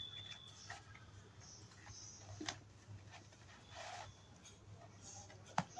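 Faint scuffling and rustling of two kittens wrestling on a woven sack: a few soft scrapes and taps, with a sharper tap near the end, over a steady low hum.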